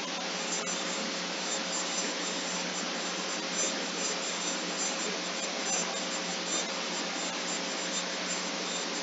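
Steady hiss with a faint steady hum tone, over which faint, irregular clicks come through: computer keyboard keystrokes during a typing test.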